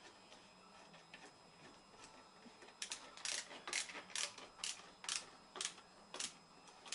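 A screw being driven in with a screwdriver while reassembling an air rifle, giving sharp, evenly spaced clicks about twice a second from about three seconds in.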